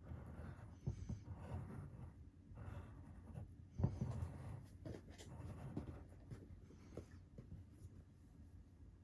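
Faint, close-miked eating sounds: irregular soft scratching and crunching, with one sharper click about four seconds in.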